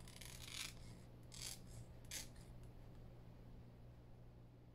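Scissors snipping through a sheet of clear Duralar polyester film: three or four short, faint cuts in the first couple of seconds.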